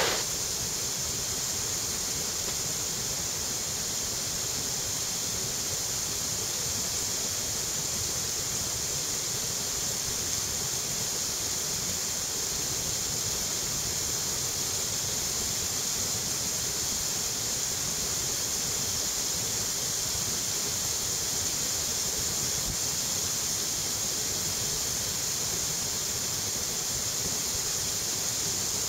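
Water pouring over a river weir and churning in the white water below: a steady rushing hiss that never breaks.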